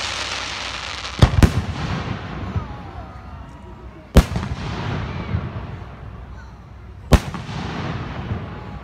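Aerial firework shells bursting overhead. There is a pair of sharp bangs about a second in, then single bangs around four and seven seconds in, each followed by a fading hiss.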